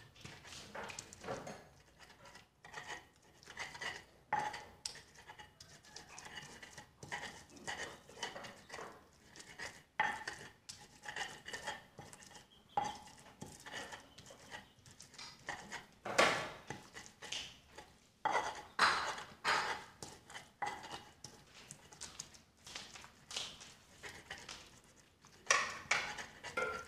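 Stone pestle (ulekan) grinding wet chili paste in a stone mortar (cobek): a continuous run of scraping, rubbing strokes with knocks of stone on stone, about one or two a second, while the sambal is being ground.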